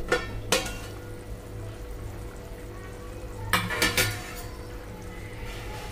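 Steel cooking-pot lid clinking against a kadhai as it is lifted off and set down: two sharp clinks near the start and a few more about three and a half seconds in, over a steady low hum.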